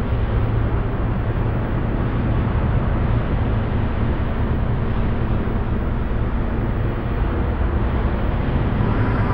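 Dark ambient drone: a dense, steady wash of rumbling noise over a strong low hum.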